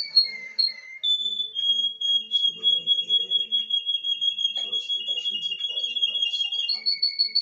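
Caged finch singing: rapid trills of repeated notes, each run held on one pitch for a second or more. The pitch drops about a second in, and the trill jumps to a new pitch near the end.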